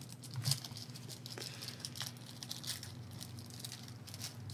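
Crinkling and crackling of a trading-card pack wrapper being handled and torn open, in a run of small crackles with the loudest about half a second in.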